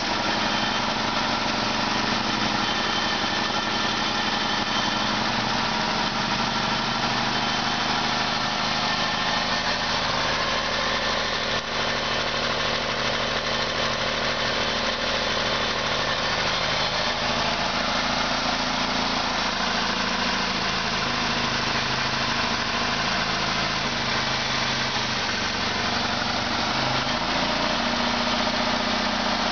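1998 Ford Escort's 2.0-litre Split Port four-cylinder engine idling steadily, heard close up in the open engine bay.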